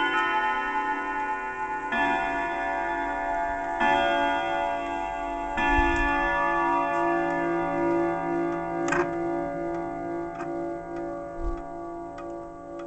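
German triple-chime wall clock striking the hour: three slow strikes about two seconds apart, each ringing on, the last dying away with a wavering beat. The clock then ticks, with a few sharp clicks near the end.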